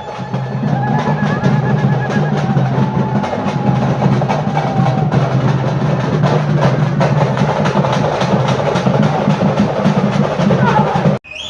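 Festival drumming: a loud percussion ensemble playing a fast, driving beat, with a faint held melodic line above it. It cuts off suddenly near the end.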